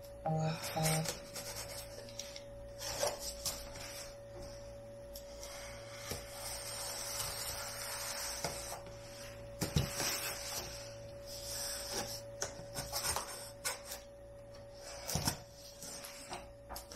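A small blade slitting the packing tape on a cardboard shipping box, with irregular scratching and rubbing along the tape and cardboard and a few sharper knocks. Near the end the cardboard flaps are pulled open.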